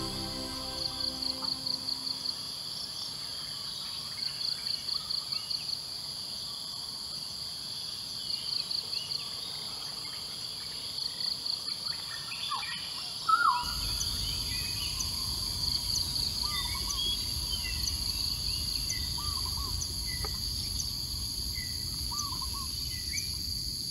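Tropical forest ambience: a steady high insect drone, with short bursts of rapid pulsed trills about every three to four seconds through the first half. A little past halfway a loud short rising whistle sounds, and after it various birds chirp over a low rumble.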